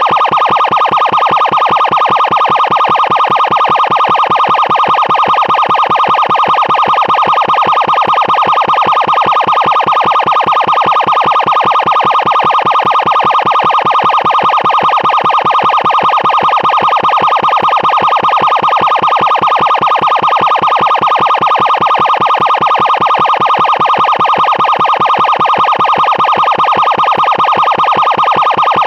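Loud emergency siren sounding without a break at one steady pitch, with a rapid, even pulsing in the tone.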